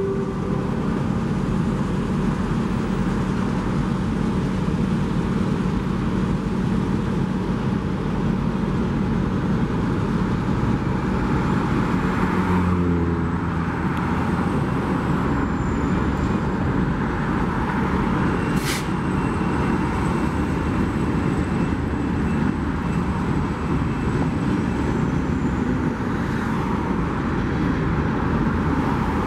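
Steady road traffic, with the engine of an EMD GP40-2 diesel locomotive running under it. A sharp click comes about two-thirds of the way through.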